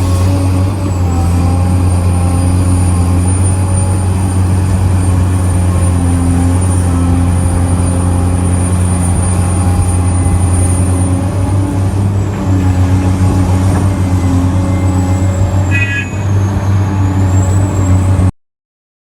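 Heavy diesel mining machinery running steadily, excavators and haul trucks at work, with a deep engine drone and a thin high whine. A brief high tone sounds about 16 seconds in, and the sound cuts off suddenly near the end.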